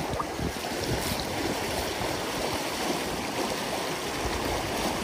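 Steady rush of a shallow river running over a gravel riffle, close by.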